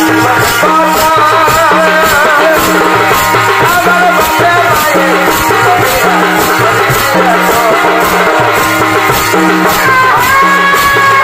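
Loud jhumur folk song for a sakhi dance: a wavering melody over a steady drum pattern and a shaker-like jingle about twice a second. About ten seconds in, the melody settles into a long held note.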